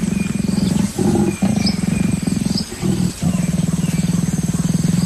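Leopard growling in a low, rasping, pulsed growl in several long stretches with brief breaks for breath, the sound of a courting or dominance encounter between a male and a female.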